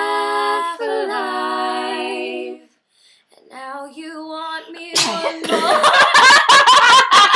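A female voice singing unaccompanied holds a note and breaks off. After a short pause comes a rising strained 'ah'. About five seconds in she lets out one loud sneeze and then bursts into rapid laughter.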